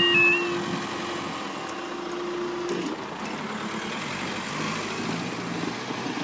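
Level crossing's two-tone yodel alarm stops just after the start, and a steady hum continues as the barriers rise, ending about three seconds in. Then road vehicles, a car and a Volkswagen van, drive over the crossing with their engines running.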